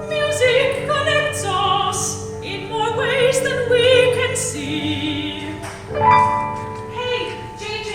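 Operatic singing with instrumental accompaniment: voices with vibrato over sustained held chords, with a louder sung entry about six seconds in.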